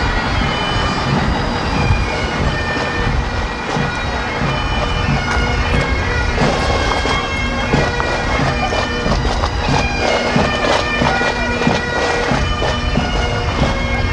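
Bagpipes of a marching pipe band playing, steady drones under a changing chanter melody, with a low rumble of wind on the microphone.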